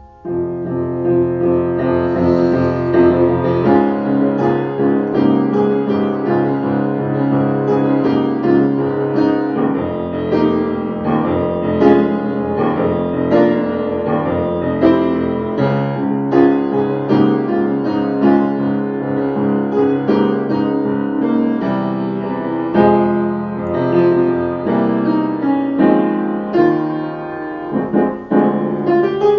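Instrumental piano music, a slow piece of held chords under a melody, coming in suddenly at full level right at the start.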